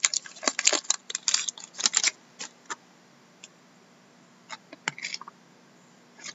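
Foil trading-card pack wrapper crinkling and crackling as it is torn open and pulled off, then a few scattered soft clicks of the cards being handled, with quiet stretches between.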